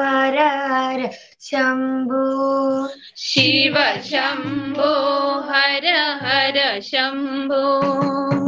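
A female voice singing a slow melody in long held notes with a slight waver. It breaks off briefly about a second in and again near three seconds, after which a low steady accompaniment joins beneath the voice.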